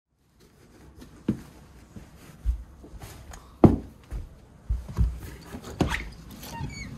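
Boots being pulled on and stepped into on a hard floor: irregular thumps and knocks, the loudest about halfway through, with clothing and boot material rubbing, and brief squeaking near the end.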